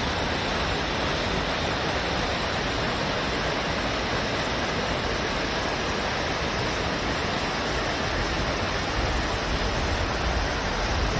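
Amadaki waterfall's water falling and splashing, a steady, even rush.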